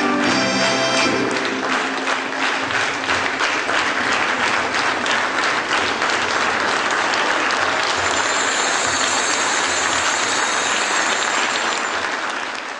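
Audience applauding after a folk dance performance, starting as the last notes of the music die away about a second in, then keeping up steadily and fading near the end.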